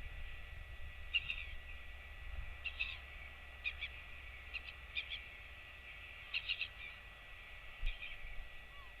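Short, high bird chirps in small quick clusters, repeating about every second, over a low rumble and a faint steady high whine.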